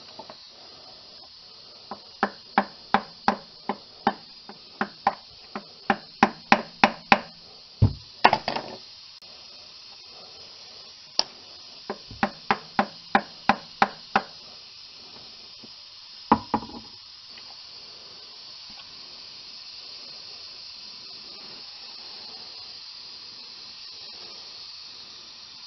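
Sharp metal-on-metal taps and clicks from a screwdriver working around the old transmission filter seal's metal sleeve to collapse it and free it from the aluminum case bore. There is a quickening run of about a dozen taps, a shorter run of about eight a few seconds later, and one last knock.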